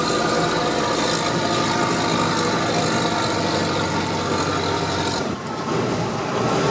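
Truck's MWM diesel engine running while driving, with the long exhaust tailpipe extension removed so the exhaust note comes through louder. The sound drops briefly about five seconds in, then picks up again.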